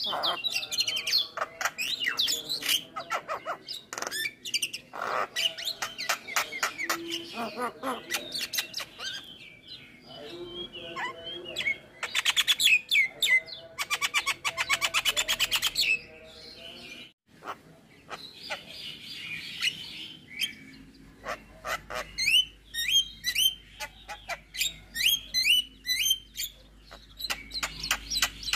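Javan myna (jalak kebo) singing a long, varied song of chattering, squawky and whistled phrases, as a 'full isian' song-tutor bird. After a short break partway through, it goes on with a run of quick, separate whistled notes.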